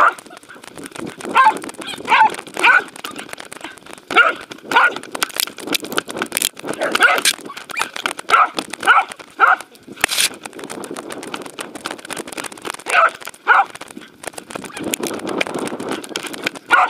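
Dog barking in short bursts, several barks at a time in about five groups, over constant rustling and knocking from fur brushing against a camera harness on a running dog.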